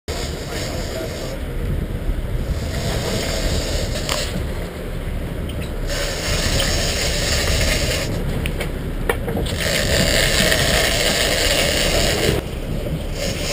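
Big-game fishing reel being cranked in bursts of a few seconds, its gears whirring, with short pauses between bursts, over a steady rumble of boat and wind noise. A couple of sharp clicks stand out.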